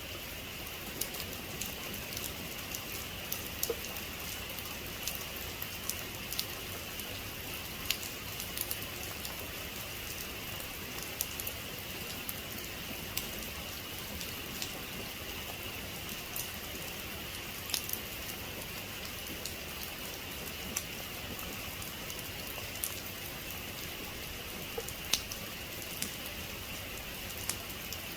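Steady heavy rain, an even hiss with individual drops ticking sharply on a nearby surface every second or so.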